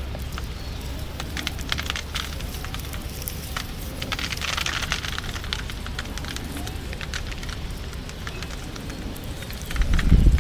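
Dry, sun-dried burrito (té de burro) leaves and twigs crackling and rustling as hands squeeze and strip the hanging bunch, a dense run of small crisp clicks. A low bump near the end.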